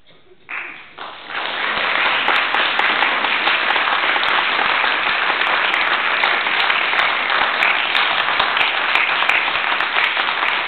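Audience applause that breaks out about a second in and then holds steady.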